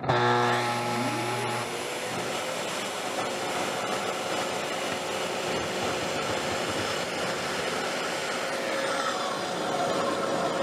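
Festool TS75 plunge-cut track saw starting up with its soft start, the motor's whine rising over about the first second and a half and then holding steady, as the blade is plunged about 1/4 inch into a board and pushed forward in a cut. The Festool CT36 dust extractor hooked to the saw runs along with it.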